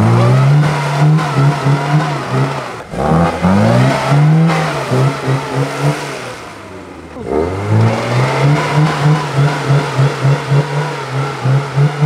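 Lada Niva's engine revving hard as the car churns through deep mud. The revs climb sharply and hold high, fall away for a moment, then climb again about two-thirds of the way through, surging and dropping about three times a second near the end.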